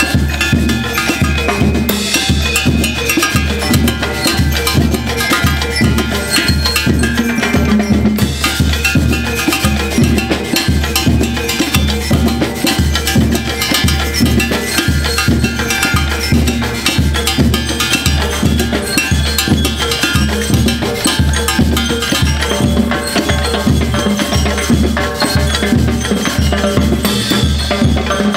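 A school marching band (banda rítmica) playing live: drums, including conga-style drums, keep a steady driving beat under a brass melody.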